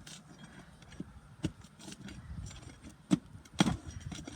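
A tool being worked under asphalt roof shingles: low scraping with a few sharp knocks, the loudest two about three seconds in and half a second apart.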